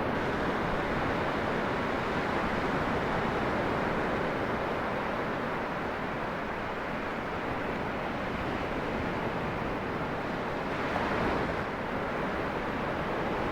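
Ocean surf breaking on a beach, a steady rushing wash that swells briefly near the end.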